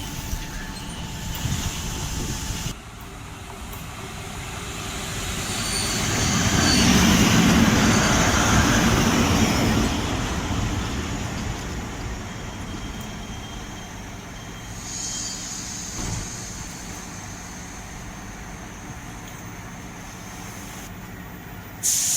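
A train passing: a broad rushing noise swells to its loudest about seven seconds in, then slowly fades away.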